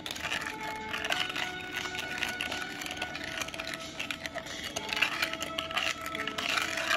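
Spoon stirring a thick fish-sauce, sugar and honey marinade in a bowl, a rapid run of light clicks and scrapes against the bowl as the sugar and honey are dissolved. Soft background music plays underneath.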